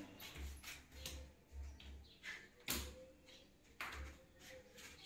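Faint scattered knocks and clicks with soft low thumps, two sharper clicks about a second apart near the middle: handling noise while a crumpled rag dabs paint onto a wall.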